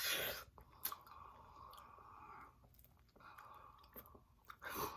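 Close-up chewing and mouth sounds of a person eating: faint wet clicks and smacks with a short noisy rush at the very start and another near the end.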